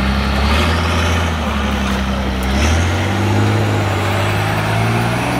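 Truck-trial truck's engine pulling hard as the truck climbs out of a muddy ditch, its revs stepping up about a third of a second in and again a little past halfway.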